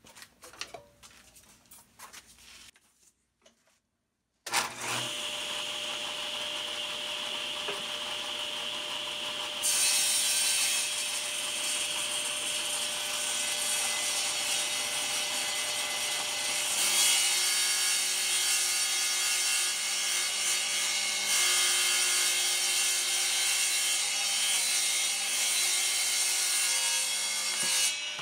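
Table saw running, starting suddenly about four and a half seconds in, as beadboard panels are ripped lengthwise. The blade's cutting hiss grows louder around ten seconds in and again from about seventeen seconds on.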